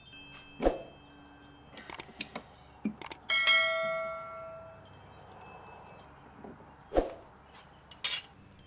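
Metal pieces being handled: a few sharp knocks and clinks, with one strike about three seconds in that rings out with a bell-like tone fading over a second and a half.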